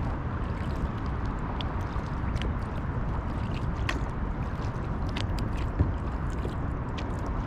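Water lapping and trickling along a kayak's hull as it is paddled through calm water, with scattered faint drips and ticks, over a steady low rumble.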